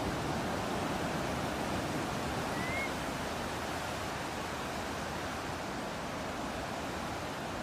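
Steady wash of ocean surf and breeze, with one short rising bird chirp about two and a half seconds in.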